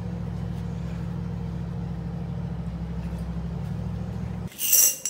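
Mother cat purring steadily, a low rumble with a fast even pulse, while she nurses her newborn kittens. The purr cuts off about four and a half seconds in, followed by a short, loud, bright clink.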